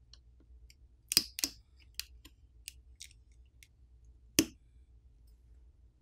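Small sharp clicks of flex cable connectors being popped off a Google Pixel 7 Pro's main board: a scattered series of about eight clicks, the loudest about four seconds in.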